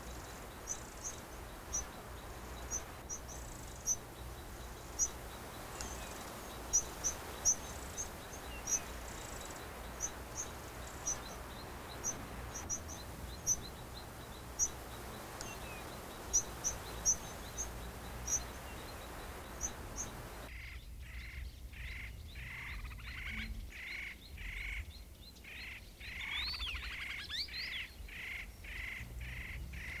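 A flock of vinaceous rosefinches giving short, high chirping call notes at irregular intervals over a steady low background hum. About twenty seconds in, the sound cuts to a different bird's rapid run of repeated lower notes, with rising whistled notes near the end.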